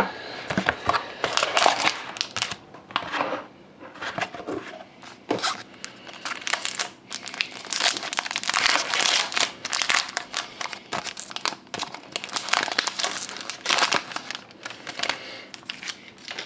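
Packaging wrap crinkling and tearing in irregular rustling spells as a box of hockey trading cards is opened and the cards unwrapped.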